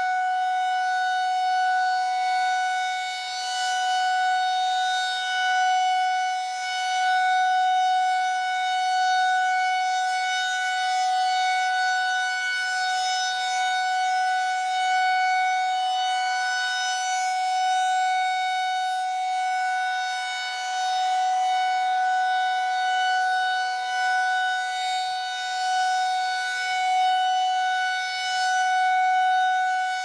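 Federal Signal 2001-SRNB rotating electromechanical tornado siren sounding a steady, unwavering tone during a siren test. The level swells and fades as the horn turns.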